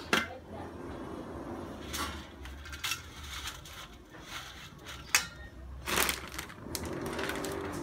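Bundle of dry thin wheat noodles rustling and crackling as hands pull the strands apart on a steel tray, with several sharp crackles standing out.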